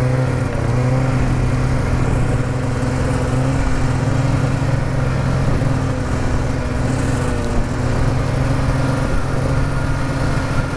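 Snowmobile engine running steadily under way, heard from on board the sled, its pitch wavering slightly in the first second and then holding even.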